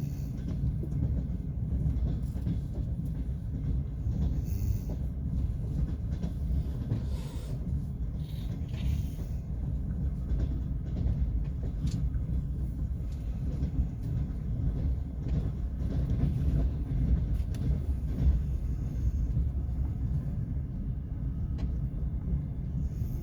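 Passenger train rolling along: a steady low rumble of the carriage and running gear, with a few faint clicks from the wheels over the track.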